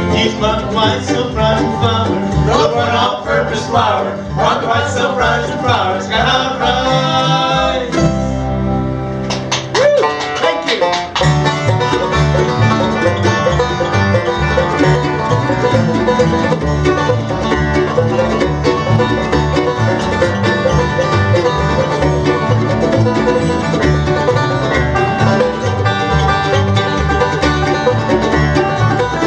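Acoustic bluegrass band playing live, with guitar and mandolin picking. One tune ends on a held chord about eight seconds in, and a new tune with an even, driving beat starts about three seconds later.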